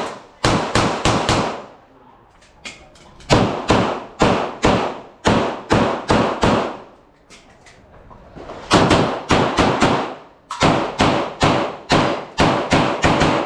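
Handgun shots fired in rapid strings: quick runs of shots about a quarter to a third of a second apart, broken by pauses of one to two seconds, typical of an IPSC course of fire.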